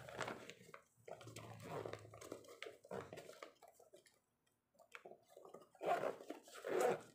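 Rustling and light knocks of a small fabric cooler bag, packed with ice packs, being handled and closed, with two short louder sounds near the end.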